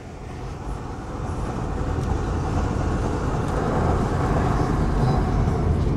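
Steady road and engine noise of a car driving at highway speed, heard from inside the cabin, growing louder over the first few seconds and then holding.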